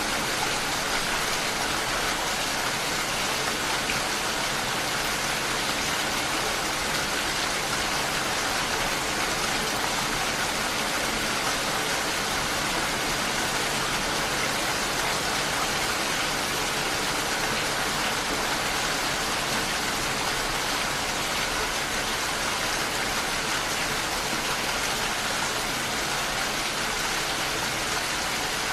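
Rain falling steadily, an even hiss with no letup.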